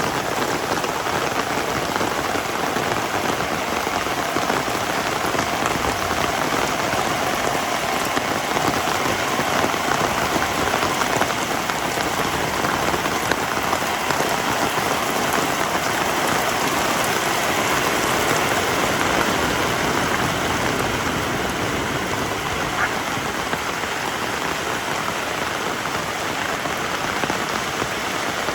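Heavy rain falling steadily: a dense, even patter of raindrops on the ground and surfaces, with no letting up.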